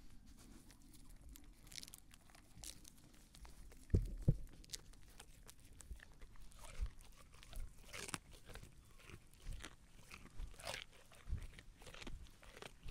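Sheep chewing pomegranate with irregular wet crunches and crackles. Two dull thumps come about four seconds in.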